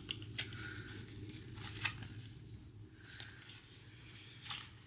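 Handling sounds of a leather-covered journal being unwrapped and opened: a few light clicks and rustles, the sharpest about half a second in, just before two seconds and near the end.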